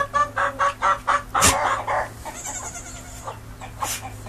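A chicken clucking in a fast, even run of about five or six clucks a second, cut off by a sharp knock about a second and a half in. After it comes a brief hiss and another short knock near the end.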